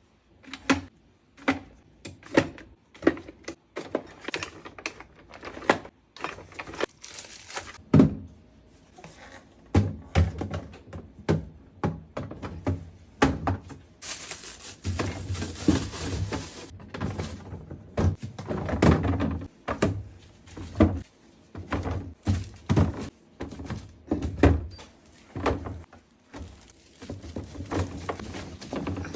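Containers and bottles being set down and arranged on refrigerator shelves: a long series of irregular knocks, clinks and thunks, with a few seconds of crinkly rustling about halfway through.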